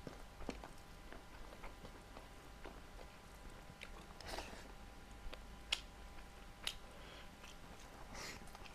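A person chewing food with small wet mouth clicks and soft smacks, and a few sharper clicks around the middle.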